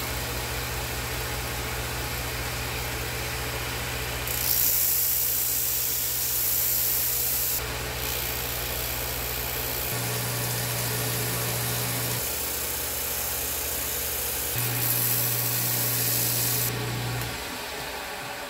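Small bench-top belt and disc sander's electric motor running with a steady hum, with two spells of louder hissing grinding as a dense resin faux-ivory grip blank is pressed against the abrasive, one a few seconds in and one near the end. The motor shuts off shortly before the end.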